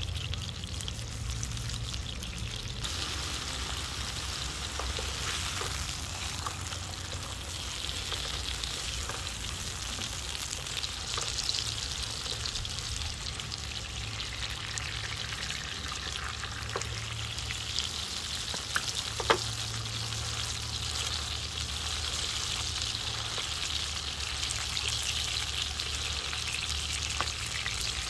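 Steak frying in oil in a non-stick pan on a portable gas stove: a steady sizzling hiss throughout, with a few brief clicks of utensils against the pan.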